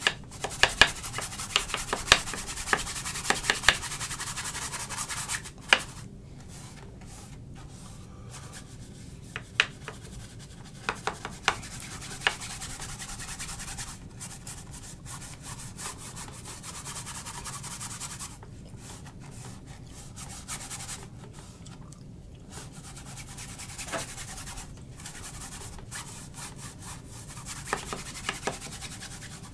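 Stiff bristle brush scrubbing oil paint across a canvas: dry, scratchy rubbing in repeated strokes with a few sharp ticks. The strokes are loudest in the first five seconds or so, then come softer and more broken.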